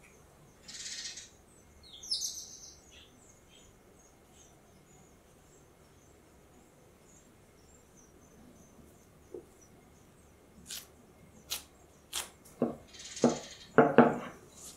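A wrung-out wet cloth rustling twice near the start as it is handled over the dough balls. Near the end comes a run of soft taps and knocks, loudest at the close, from gloved hands pressing and rolling a dough ball with a wooden rolling pin on a silicone baking mat.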